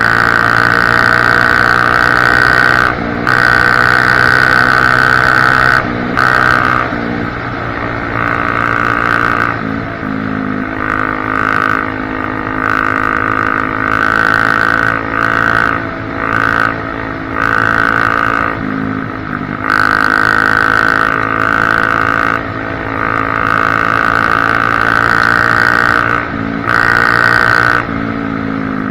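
Honda CRF250F dirt bike's single-cylinder four-stroke engine running hard with the exhaust baffle removed, its note held steady and then dropping briefly every few seconds as the throttle is rolled off.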